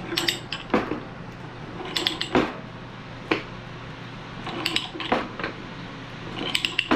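Ratcheting pipe threader being cranked to cut threads on a 1/2-inch steel pipe: clusters of sharp metallic ratchet clicks about every two seconds as the handle is swung through its strokes.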